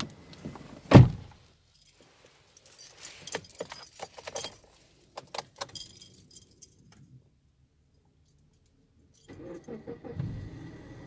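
A car door is pulled shut with one heavy thud, followed by keys jingling and clicking. Near the end the Kia's engine starts and runs with a low, steady hum.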